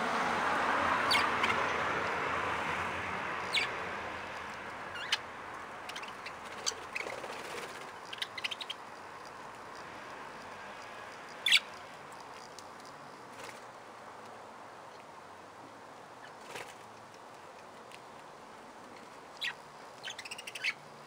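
Budgerigars giving short, scattered chirps, single calls and small quick clusters with pauses between. A broad rushing noise fades away over the first few seconds.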